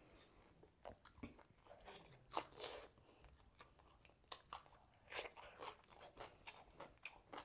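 A person eating a grilled chicken meal close to the microphone: irregular bites and crunches with wet chewing in between, the loudest crunch about two and a half seconds in.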